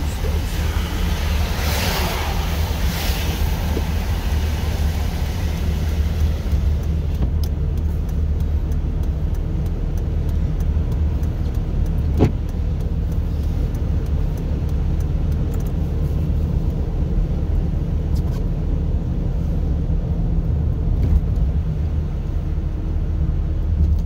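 Steady engine drone and tyre noise on a wet, slushy road, heard from inside the cab of a four-wheel-drive vehicle. A louder rush of hiss comes in the first few seconds, and a single sharp knock about twelve seconds in.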